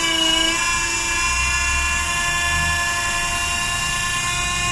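Electric motor and hydraulic pump of a jacking power unit running steadily under pressure, a whine of several steady tones; a few of the tones shift about half a second in, and a low rumble swells for a second or two.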